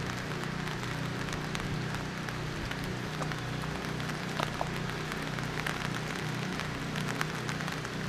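Rain and drips pattering steadily, many small taps over a constant hiss, with a low steady hum underneath.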